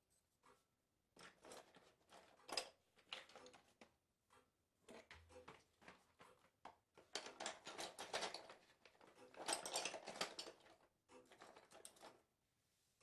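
Sound-design crackling: dense clusters of small, dry clicks and rustles in bursts a second or two long, loudest about two and a half seconds in and again from about seven to ten seconds in.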